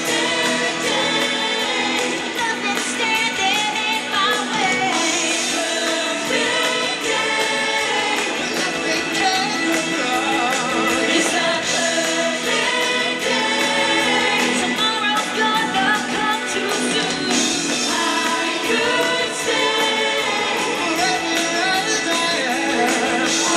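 Pop music with a group of voices singing together, performed in a live stage show.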